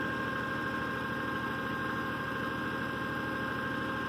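Tractor engine running steadily at a low, even speed, with a steady high-pitched whine over it.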